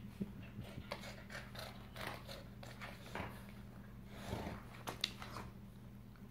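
An adult dog and a puppy play-wrestling on a wooden parquet floor: scuffling, mouthing and the scattered clicks and scrapes of claws and bodies on the wood. A steady low hum runs underneath.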